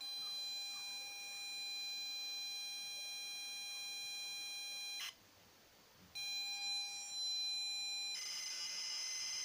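ZX Spectrum tape-loading signal heard through a small speaker driven by an added PWM amplifier that takes its signal from the ULA's tape-input pin. A steady high pilot tone runs for about five seconds and ends in a short blip, followed by a second of quiet. A second pilot tone then gives way about eight seconds in to the faster, buzzing data signal: the machine is loading a header and then a data block.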